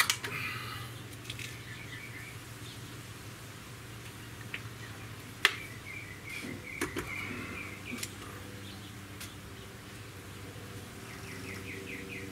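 Diana 48 spring-piston side-lever air rifle being cocked and loaded between shots: a sharp click about five and a half seconds in, then a few softer clacks. Birds chirp in the background over a low steady hum.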